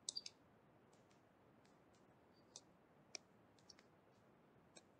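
Near silence with a few faint, scattered clicks from a stylus tapping on a tablet as numbers are handwritten: a small cluster right at the start, then a few single clicks after the middle.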